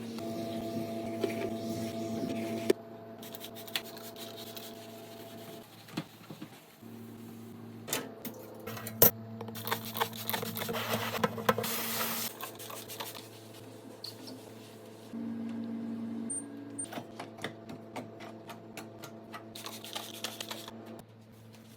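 Household cleaning sounds: scattered clicks and knocks of objects being handled, and a few seconds of hissing or scrubbing noise about ten seconds in, over a steady appliance hum.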